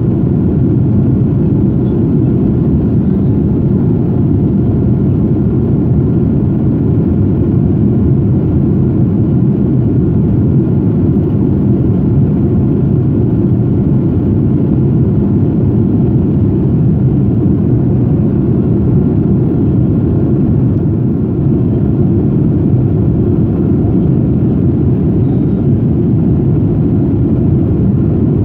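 Steady, low engine and airflow noise heard inside the cabin of a Boeing 787 Dreamliner, from its Rolls-Royce Trent 1000 turbofans, with no change in level.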